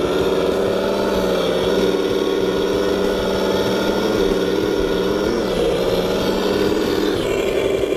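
An RC truck's onboard engine sound system plays a simulated diesel engine running steadily while the truck crawls under power. Its pitch rises and falls a little as the throttle changes.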